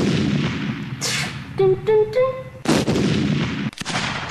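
Gunfire and explosion sound effects: a long blast at the start, a second blast past the middle, then a run of sharp, rapid shots near the end, with a few short pitched vocal blips in between.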